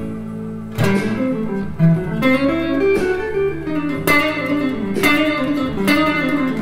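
Sunburst Squier Stratocaster-style electric guitar playing blues-scale licks: a run of picked single notes with a few struck chords, each note ringing briefly.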